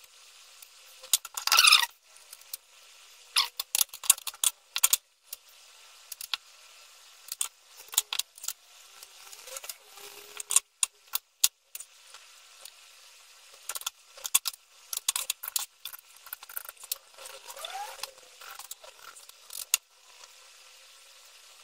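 Electrical tape being pulled off the roll and wrapped around a small quadcopter frame: irregular short crackling rips, mixed with light clicks as the frame and its parts are handled.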